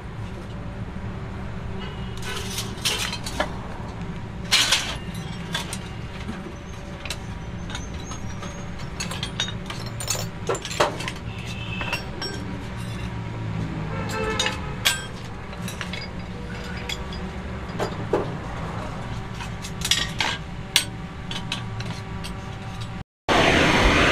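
Aluminium brake shoes and a steel tube clinking and knocking against a steel brake plate as the shoes are fitted and levered into place, a few sharp clicks every second or so over a steady low hum. Near the end, after a brief drop to silence, a gas blowtorch hisses loudly and steadily.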